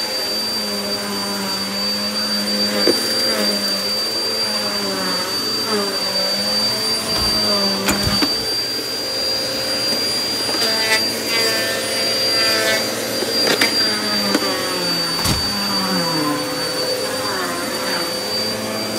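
Upright vacuum cleaner running over an entry doormat, its motor pitch dipping and rising as it is pushed back and forth, over a steady high whine. A few sharp clicks and a brief rattling stretch about halfway through are grit crunching up from the mat.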